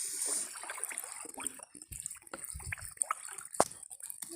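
Pond water dripping and splashing in small, irregular splashes.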